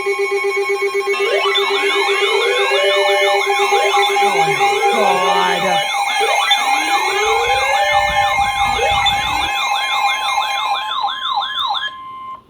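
Several sirens sounding at once, their rising-and-falling sweeps overlapping over steady held tones, with the sweeps getting faster later on. A low rumble joins partway through, and everything cuts off shortly before the end.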